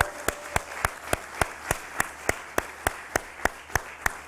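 Applause: one pair of hands clapping close by in an even beat, about three or four claps a second, over fainter clapping.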